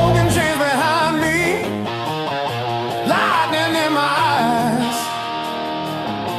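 Rock music with guitars and a wavering lead melody that rises twice, about a second in and again about three seconds in.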